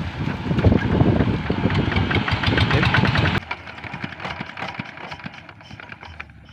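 Single-cylinder diesel engine of a rice-field hand tractor running with a fast knocking beat after being hand-cranked; it is loud, then drops abruptly to a much quieter running knock about three and a half seconds in.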